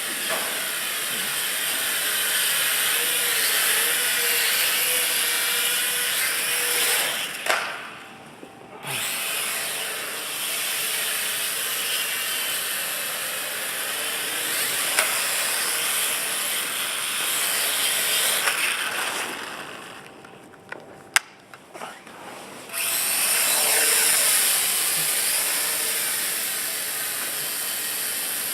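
WL Toys V949 micro quadcopter's motors and propellers buzzing in flight, the pitch sweeping up and down with throttle. Twice the motors drop out for a second or so and spin up again, with a sharp tap during the second pause.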